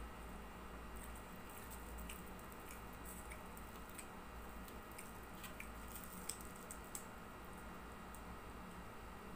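Someone eating crisp fried dried fish (tuyo) and rice with bare fingers: soft scattered clicks and crunches of picking at the fish and chewing, over a steady low hum.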